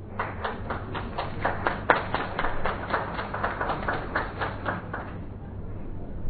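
Scattered applause from a small seated audience, individual claps audible, fading out about five seconds in.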